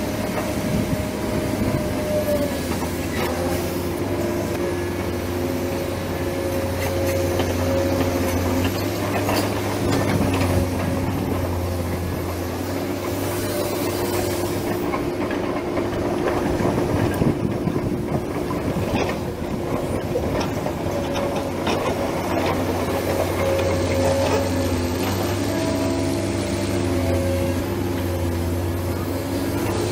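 Model excavator's electric motors running with a steady hum whose pitch steps up and down as the boom and bucket move, while the bucket digs into soil with scattered clicks and rattles of dirt and small stones.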